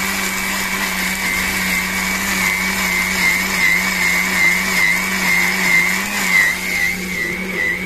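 Electric mixer grinder running steadily, grinding boiled chillies, tomato and ginger with water into a wet chutney paste in its steel jar. The motor's hum wavers slightly in pitch in the second half.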